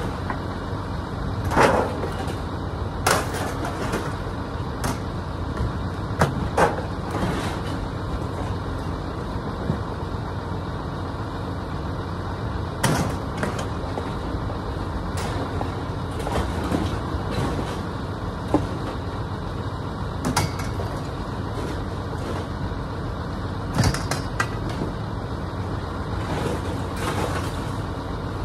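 A vehicle's engine running steadily, with sharp knocks and clanks every few seconds.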